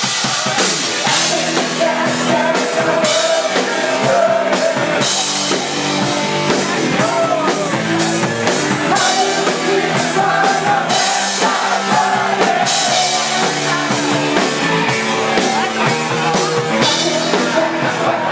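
Live rock band playing loudly: drum kit with steady cymbal and snare hits, electric guitars and bass, with a singer over the top.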